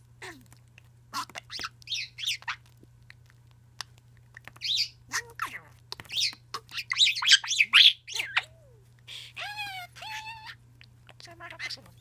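Budgerigar chattering: bursts of quick, high warbling chirps, loudest around the middle, with a couple of lower, drawn-out notes near the end.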